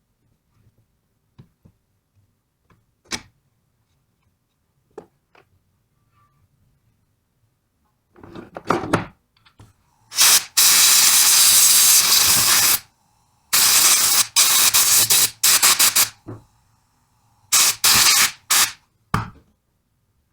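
Pneumatic impact wrench working on the alternator pulley in several bursts of hissing air and rapid hammering: one long continuous run, then a stretch of fast blows, then two short bursts near the end. A few light tool clicks come before it.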